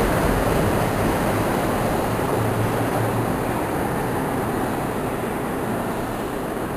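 CTA Blue Line subway train rolling alongside an underground station platform: a steady rumble of wheels on rail and running gear, echoing in the station and easing gradually in level.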